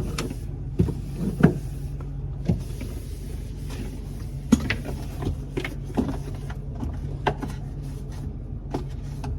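A steady low hum under irregular knocks and clunks, about one every second or less, like things being handled and set down.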